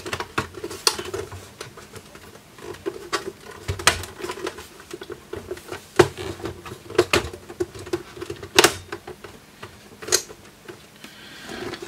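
Irregular plastic and metal clicks and knocks as the Agilent E3646A bench power supply's sheet-metal cover and moulded plastic end bezel are pushed and seated by hand, with a few sharper snaps about halfway through.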